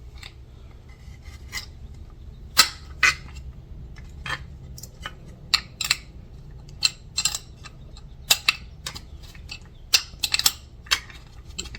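A metal wrench clicking and clinking against a nut and bolt as it is fitted on and turned: irregular sharp metallic clicks, a few louder than the rest.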